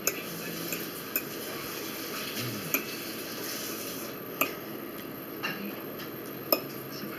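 Cutlery clinking lightly against a plate: six short, sharp clinks spread about a second apart over steady room hiss.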